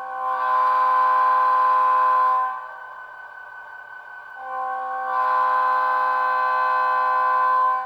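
Bachmann GP35 model locomotive's WOW Sound decoder sounding its Leslie RS-3 air horn sample: two long blasts of a steady multi-note chord. The first lasts about two and a half seconds; the second starts about four and a half seconds in and runs a little longer.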